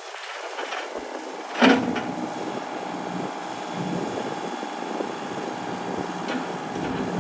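Hyundai 25Z mini excavator's diesel engine running steadily, with a loud knock about a second and a half in, after which the engine's low hum sounds stronger.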